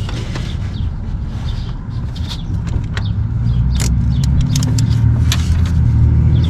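Irregular metallic clicks and clinks of hand tools and sockets being worked on the alternator bolts in an engine bay, over a steady low mechanical hum that grows slightly louder about two seconds in.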